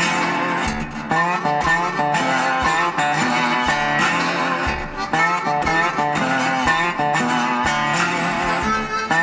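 Background music: a guitar-led track with bending, blues-style plucked guitar notes over a steady beat.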